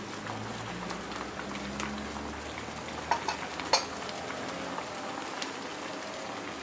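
Sauce bubbling and sizzling in a frying pan as braised Napa cabbage with eggs simmers: an even crackling hiss, with a few sharp pops about three to four seconds in.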